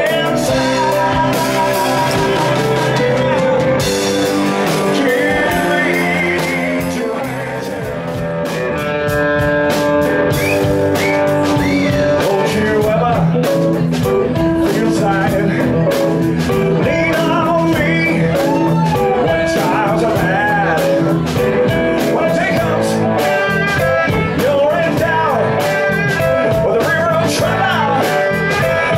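Live blues rock band playing, with electric guitar and a male singer.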